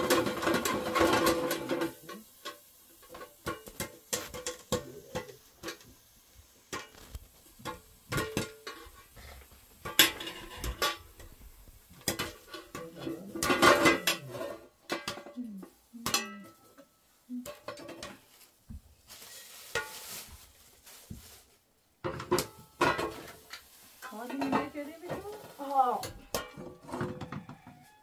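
Metal spoon clinking and scraping against a shallow metal pan on a gas stove, with pans knocking and clattering in short, irregular strikes.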